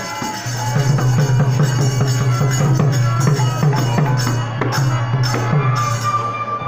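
Bengali kirtan music played live: a violin melody over the rhythm of a khol barrel drum, with metal percussion jingling on the beat.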